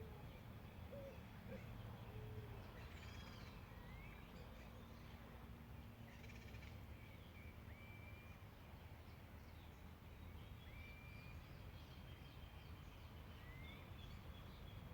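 Faint songbirds calling in a countryside morning: scattered short whistled notes, chirps and quick upward slurs from several birds, over a steady low rumble.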